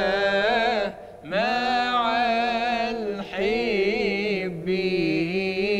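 A man singing an unaccompanied Islamic devotional chant (inshad), drawing a sung word out into long, ornamented notes with vibrato. A short pause for breath comes about a second in.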